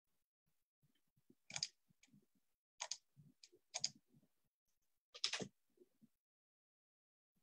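Faint clicks and soft knocks at a computer desk: four sharp clicks about a second or so apart, with quieter low knocks between them.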